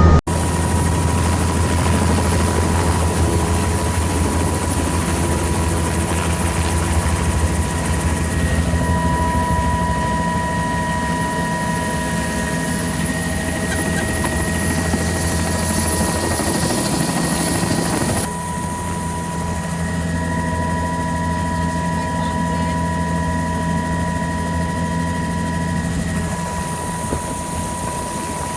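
Helicopter in flight: a steady drone of rotor and engine, with a deep hum and a constant high whine. Its sound shifts abruptly about eighteen seconds in, then runs steady again.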